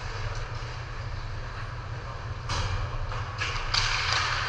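Ice hockey rink during play: a steady low hum, and from about halfway a few sharp scraping hisses that grow densest and loudest near the end, typical of skate blades cutting and stopping on the ice.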